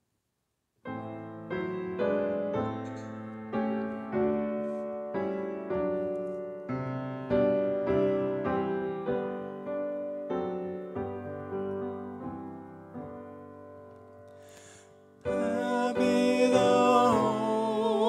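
A grand piano plays a slow introduction, a new chord or note struck every half second or so, growing softer over about fourteen seconds. About fifteen seconds in, a woman's voice enters singing with the piano, louder.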